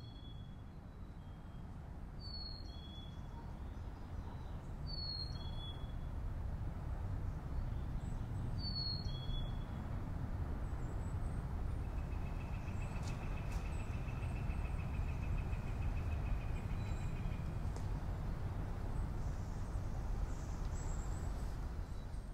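A songbird repeats a clear two-note whistle, a high slightly falling note then a lower one, four times in the first ten seconds. A longer even trill runs in the middle and a single high note comes near the end, over a steady low outdoor rush that grows louder.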